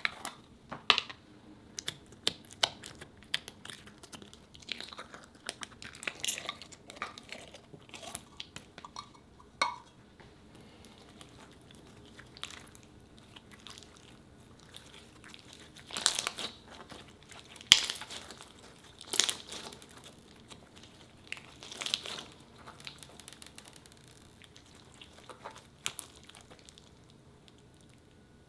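Hands squeezing and pressing jelly cube slime: irregular crackles and wet squelches, several louder ones in the second half.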